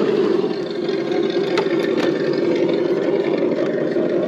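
Steady engine-like idle rumble from a radio-controlled scale crawler truck's electronic engine-sound kit, with a few sharp knocks as tyres drop over wooden slats.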